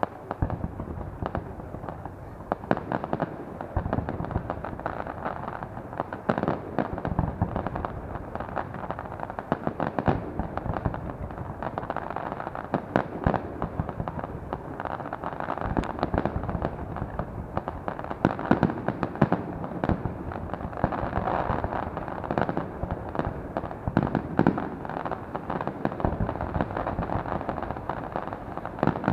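Fireworks going off in a dense, continuous barrage: many bangs and crackles overlapping, several a second, with no let-up.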